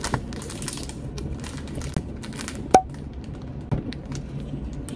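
Thin plastic bread bag crinkling and rustling as it is handled, in short irregular bursts, with a short sharp click a little past the middle.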